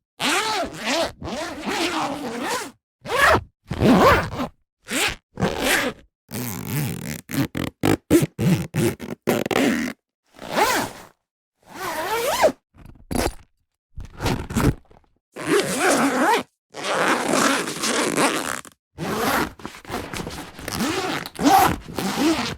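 A series of zippers being zipped open and shut, some strokes quick and short, others drawn out over a second or two, with short pauses between them.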